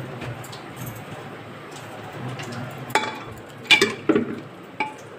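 A serving spoon knocking against an aluminium pressure cooker: four sharp clinks with a short metallic ring, in the second half.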